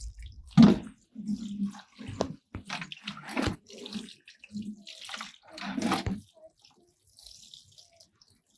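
Water splashing onto soil and plants in irregular gushes, as freshly planted plants are watered in; it dies down to faint drips and trickles about six seconds in.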